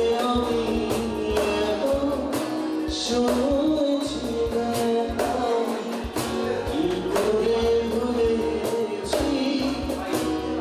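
Live acoustic music: a man singing a melody with held notes over a strummed acoustic guitar, with a cajon keeping a steady beat.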